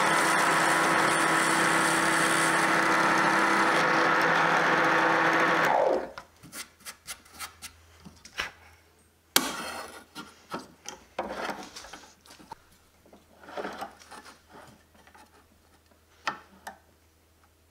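Drill press motor running steadily while boring into plywood, then switched off about six seconds in, its hum falling in pitch as it winds down. After that, faint scattered knocks and rubs as the plywood block is handled on the table.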